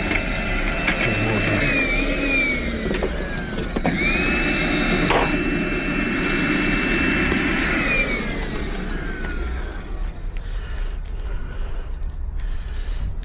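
Small high-speed electric motor tool running with a steady high whine, switched off and winding down, started again about four seconds in, then winding down once more, used to clear dust out of the fitting hole.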